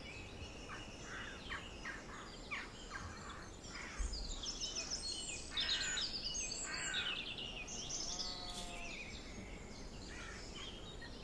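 Wild birds chirping and singing in many short high calls and trills, busiest in the middle, with a lower pitched call about eight seconds in.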